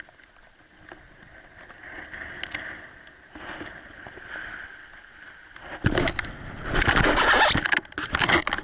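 Water splashing and sloshing close by, faint and broken by a few small ticks at first, then loud and churning from about six seconds in.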